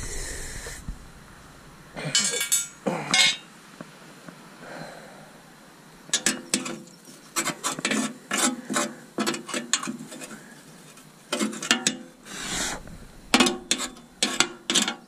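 Bursts of rapid clicking and scraping, quick mechanical rattles and rubs, with quieter gaps between the bursts.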